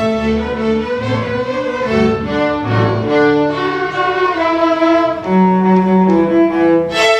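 School string orchestra of violins, cellos and basses playing a fiddle-style piece, with sustained bowed notes and a bass line that moves every half second or so; a new chord comes in sharply near the end.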